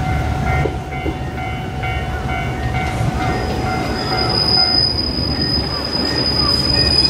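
JR West 105 series electric commuter train pulling into a station, its wheels and running gear rumbling low on the rails. A little past three seconds in, a high, steady brake squeal starts as the train slows for its stop.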